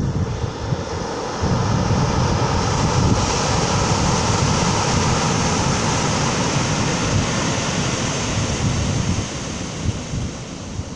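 An airplane passing overhead: a steady rushing engine noise that swells about a second and a half in and eases off near the end, over surf and wind buffeting the microphone.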